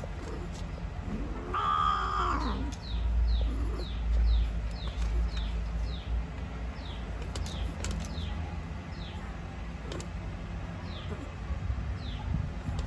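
A cat gives one short meow about a second and a half in, over a low rumble. Throughout, a bird chirps in the background, a quick falling chirp repeated about three times a second.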